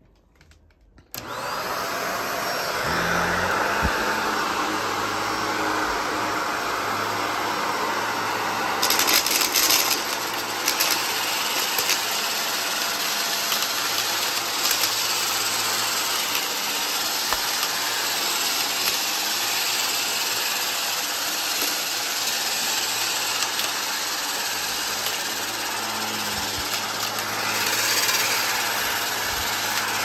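Shark upright vacuum cleaner switched on about a second in, its motor spinning up and then running steadily as it is pushed over carpet. Around nine to eleven seconds in, beads and gritty dirt crackle and rattle as they are sucked up the nozzle.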